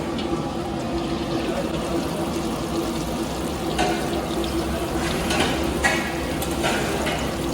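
Steady rushing of water running or filling into a vessel, with a few sharp metallic clinks about halfway through and near the end.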